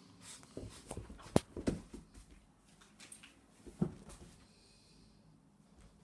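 Golden retriever puppy playing with a rope toy: scattered light taps, knocks and scuffles of paws and toy on carpet and puppy pads, with one sharp click about a second and a half in and a duller knock near four seconds.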